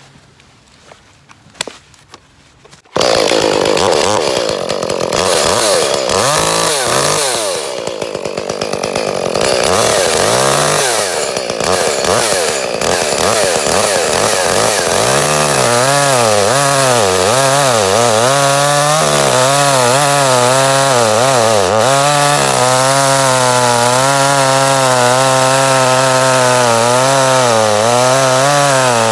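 Echo CS-310 two-stroke chainsaw coming in suddenly about three seconds in, revving up and down, then running at high revs in a cut through a wood block, its pitch wavering under load. This is the cut test after a new spark plug, fitted to cure the saw cutting out at high revs.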